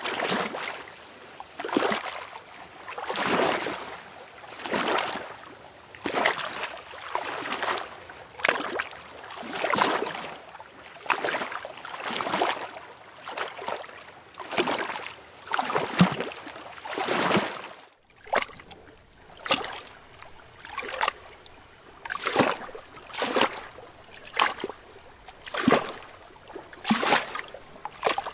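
Lake water lapping in small, regular waves, one wash about every second and a half. About eighteen seconds in it drops away for a moment, and after that the laps are shorter and sharper.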